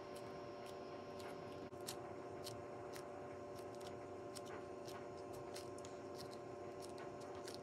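Crayola Model Magic foam clay being kneaded and squeezed in the hands, giving faint, irregular little crackles and ticks over a steady low hum.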